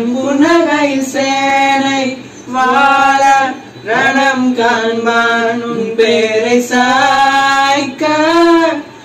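A man singing a Tamil song into a microphone without accompaniment, holding long notes in phrases with short breaths between them.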